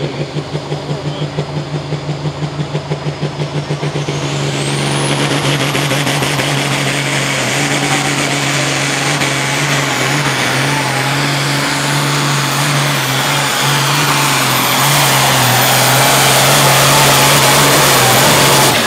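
International Harvester pulling tractor's turbocharged diesel engine under full load on a pull. For the first few seconds it runs low and pulsing, about five beats a second. About four seconds in it opens up, with a high turbo whistle that rises and then holds, and it grows louder toward the end.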